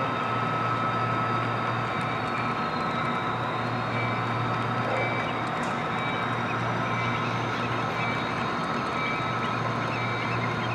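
An HO scale model freight train rolling past: a steady rumble and whir of the cars' wheels running on the track, with a low steady hum underneath.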